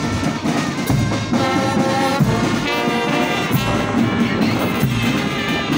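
Brass band playing, trumpets and trombones sounding held chords that change every second or so.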